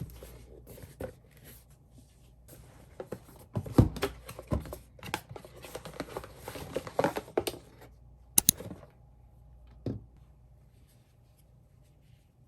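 Things being handled in a small room: scattered rustling and crinkling with light clicks and taps, a sharp double click about eight and a half seconds in, then only a faint steady hum.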